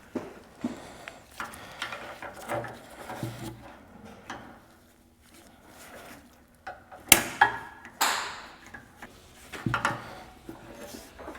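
Hand tools clicking, scraping and knocking against metal while working a stubborn cotter pin out of a Humvee bumper nut. There are irregular small clicks and scrapes, with sharp louder clacks about seven, eight and ten seconds in.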